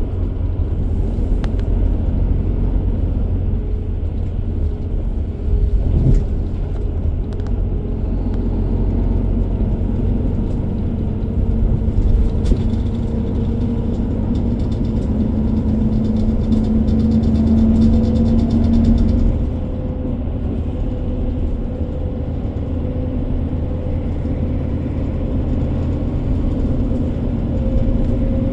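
Engine running with a steady low rumble, its pitch drifting up and down and strongest about two-thirds of the way through before easing off.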